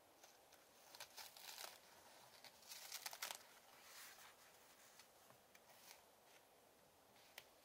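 Pages of a handmade paper booklet being turned by hand: soft paper rustles about a second in and again, louder, around three seconds, with a faint tick near the end.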